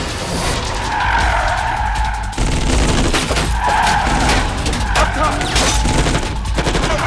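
Action-film car-chase sound mix: car tyres screeching and skidding, broken by sharp crashes and impacts of smashing glass and metal.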